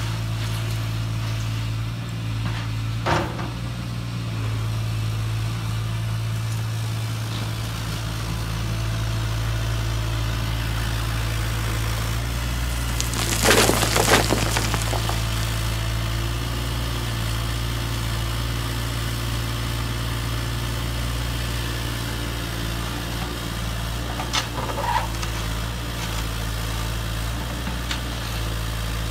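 Gravel pouring from a HUINA 580 RC excavator's metal bucket and rattling into a model dump truck's bed, a loud burst lasting about a second and a half about halfway through, over a steady low hum. Brief clatters about three seconds in and again near the end.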